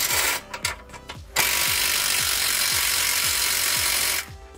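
Cordless impact wrench tightening the 19 mm nut on a rear shock absorber's lower mounting bolt. A short burst comes at the start, then a steady run of about three seconds that cuts off suddenly. Background music with a repeating beat plays underneath.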